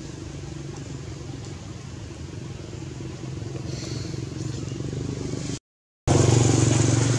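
An engine running steadily at idle, a low even hum. The sound cuts out completely for about half a second near the end and comes back louder.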